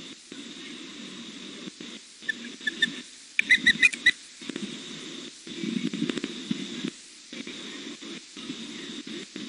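A juvenile osprey gives a quick run of short, high chirps about three and a half seconds in, after a few fainter ones, over a low on-and-off rumbling noise.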